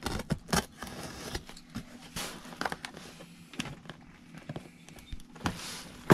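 Box cutter scraping and sawing at packing tape and cardboard, with scattered clicks and rustles as the parcel is handled. The blade is dull and barely cuts.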